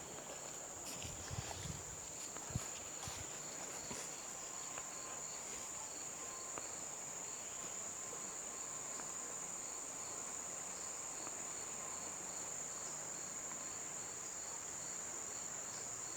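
Outdoor insect chorus of crickets or similar insects: a steady high-pitched trill, with a fainter second call pulsing evenly beneath it. A few soft knocks come in the first few seconds.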